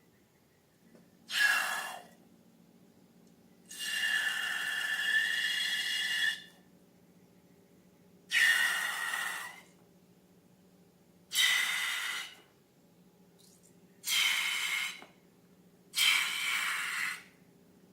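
Air let out of a balloon neck in six short bursts, each a hissing squeal with a steady pitch near the top; the second burst is the longest.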